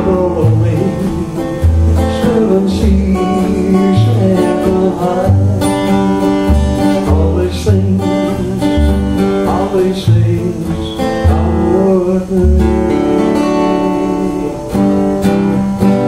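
Acoustic guitar strummed along with an electric organ holding sustained chords over pulsing low bass notes: the instrumental close of a slow country-folk song.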